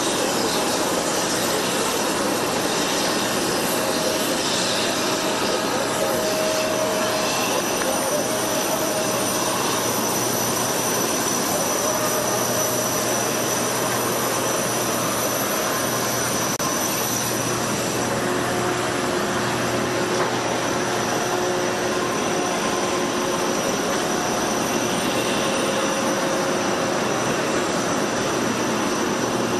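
Jet aircraft engines running on an airport apron: a steady rushing noise with a thin high whine held throughout and a low hum underneath.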